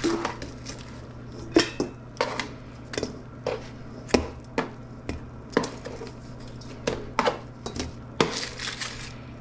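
Metal tongs clinking and scraping against a sheet pan and a stainless steel mixing bowl as roasted chicken pieces and potatoes are picked up and dropped into the bowl. The sharp clinks come irregularly, about one every half second, over a steady low hum.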